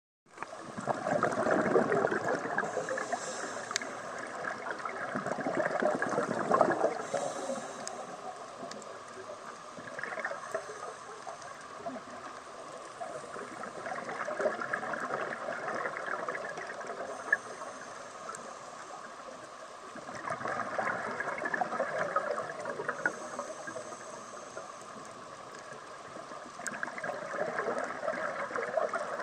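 Scuba diver's regulator breathing underwater: bubbly, gurgling exhalations swell up about every five to seven seconds, with a quieter hiss between breaths.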